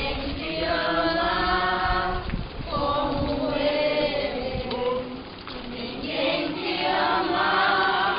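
A crowd of procession participants singing a hymn together, holding each note for a second or two, with the singing dipping briefly about five seconds in.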